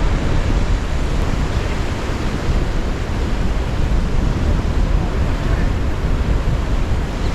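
Wind buffeting the microphone over the steady wash of breaking surf, a continuous rushing noise heaviest in the low end.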